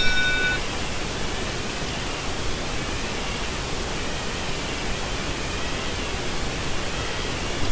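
Steady hiss of background noise, with a brief cluster of high electronic tones at the very start.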